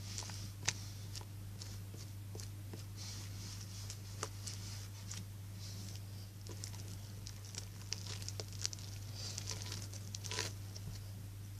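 Slime being handled, crackling and popping with many small irregular clicks, busiest near the end, over a steady low hum.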